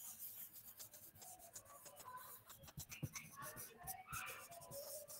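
Faint tapping and scratching of a stylus writing a word by hand on a tablet screen, with a few sharper taps around the middle.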